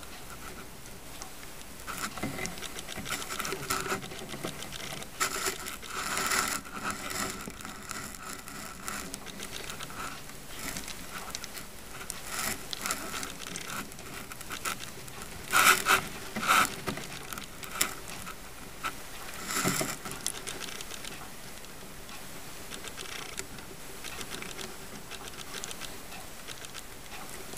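Faint scattered rustling and light tapping, with a few louder knocks about sixteen and twenty seconds in.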